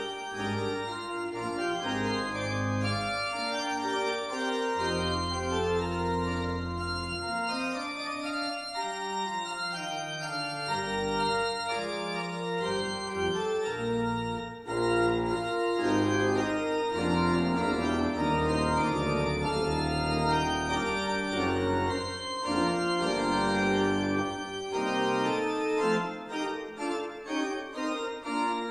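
Organ music: slow chords and long held bass notes that sustain without dying away, played as a postlude at the close of the service.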